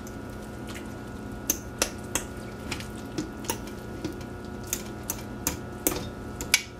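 A fork shredding cooked chicken in a slow cooker's stoneware crock: light, irregular clicks and taps of metal on the pot, about two a second, over a steady low hum.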